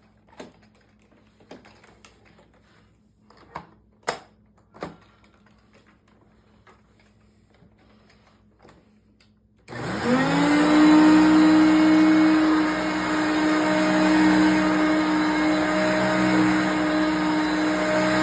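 A few light clicks and knocks, then, about halfway through, a 1988 Hoover Concept One upright vacuum cleaner is switched on: its motor spins up quickly with a rising whine and settles into a loud, steady run.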